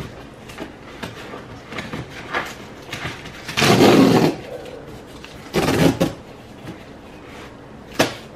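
Tear strip being pulled along the top of a corrugated cardboard shipping box, the cardboard ripping open in two bursts: a longer one about four seconds in and a shorter one around six seconds. A sharp tap comes near the end, with light handling rustles between.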